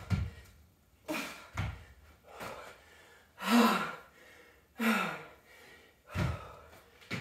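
Hard, breathy gasps and groaning exhales of a woman working through dumbbell burpees with renegade rows, the two loudest about three and a half and five seconds in. Between them come a few dull thuds of the dumbbells and her feet landing on the rubber mat.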